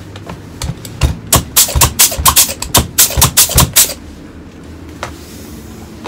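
Rapid, uneven short blasts from a handheld compressed-air gun on an air hose, a few each second, stopping suddenly about four seconds in.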